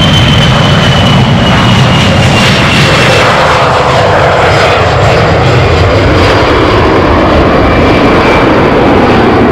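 Boeing 737-500's twin CFM56-3 turbofan engines at takeoff thrust: a loud, steady jet roar with a high fan whine that falls slowly in pitch over the first few seconds.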